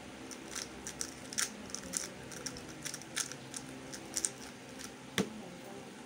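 Plastic MF3RS2 3x3 speed cube being turned fast: quick, irregular clicking of the layers snapping round. Near the end comes one louder knock as the solve ends and the cube is set down. An electric fan hums steadily underneath.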